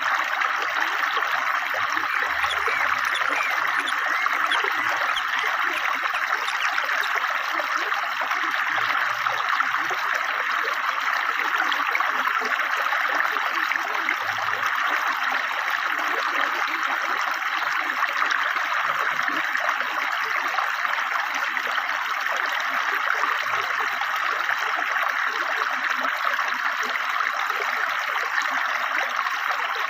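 A river stream flowing swiftly, a steady, even rush and babble of water over stones.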